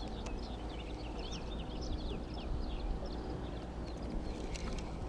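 Small birds chirping in quick, varied notes over a steady low rumble.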